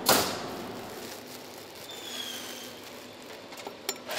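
Steady background noise of a prefab timber-house factory hall, with a faint high falling squeak about two seconds in and a short click just before the end.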